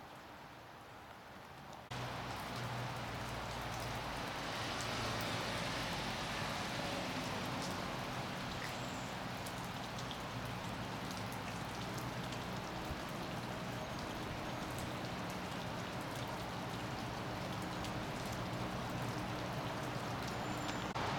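Rain falling steadily on wet pavement, puddles and wooden roofs, starting abruptly about two seconds in after quiet room tone. A low steady hum runs underneath.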